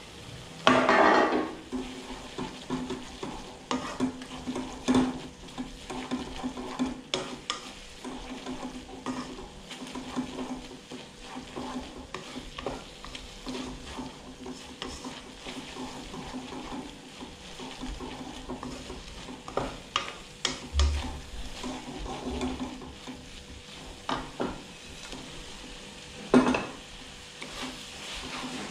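Noodles and chicken stir-frying in a wok: steady sizzling with repeated scrapes and clicks of a spatula against the pan, a louder stroke about a second in and another near the end. A low steady hum runs underneath.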